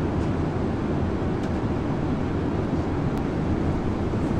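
Steady low roar inside the cabin of a Boeing 777 at cruise altitude: engine and airflow noise, unchanging in level.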